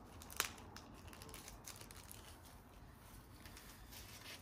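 Paper seed packet handled and opened by hand: faint crinkling and small clicks, with one sharp tick about half a second in.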